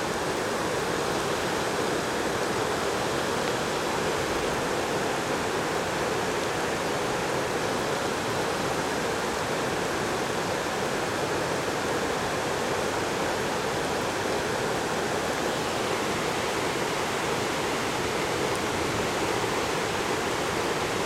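A creek in flash flood, swollen after heavy downpours to many times its normal width and moving very rapidly, gives a steady, unbroken rush of fast-flowing water.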